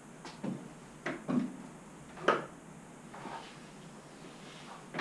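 A few scattered wooden knocks and clunks, the loudest about two seconds in, from the tilted plywood top of a wheeled CNC table being handled.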